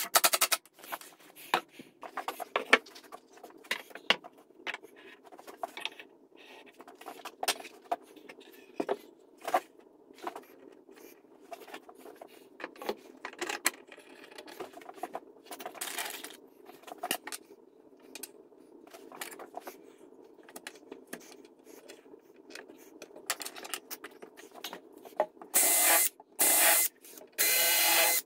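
Scattered clicks and knocks of wood and metal corner brackets being handled and fitted, then a DeWalt cordless drill-driver driving screws in several short bursts near the end.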